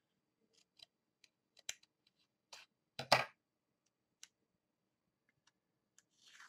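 Small scissors snipping through a strip of washi tape, with small clicks and paper handling around it and one louder knock about three seconds in.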